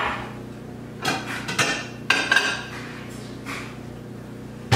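Dishes clinking and knocking, about five separate sharp clatters, as a bowl is taken out of a kitchen cupboard, with the cupboard door knocking shut near the end.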